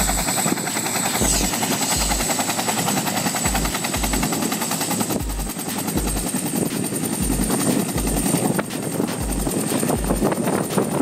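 Agusta-Bell 212 military helicopter running on the ground, its main rotor turning with a rapid, even beat over a high, steady turbine whine that rises slightly about halfway through.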